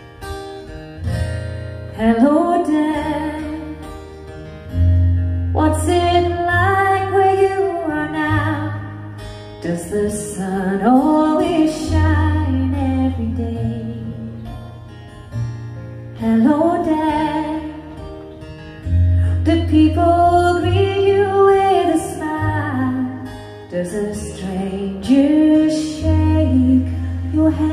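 Live country-folk song: a woman singing in phrases over strummed acoustic guitar and electric guitar, with held low bass notes underneath.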